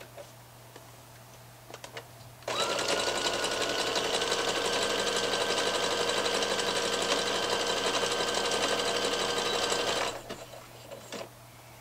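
Electric domestic sewing machine stitching a short seam in a rib-knit hem band: after a few faint handling clicks it starts about two and a half seconds in, quickly comes up to speed and runs at a steady whir for about seven and a half seconds, then stops abruptly.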